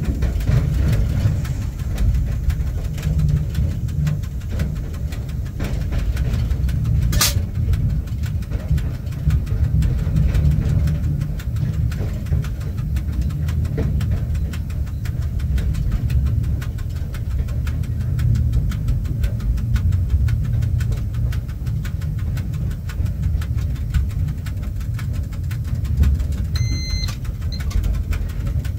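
Steady low rumble inside the cab of a ChS4 electric locomotive, with one sharp click about seven seconds in and a brief high electronic tone near the end.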